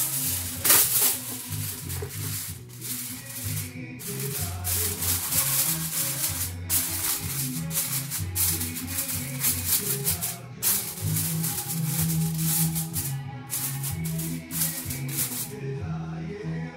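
Background music with a bass line and shaker-like percussion.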